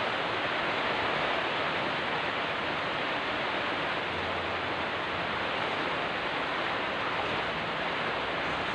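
Heavy typhoon rain: a steady, unbroken rushing hiss.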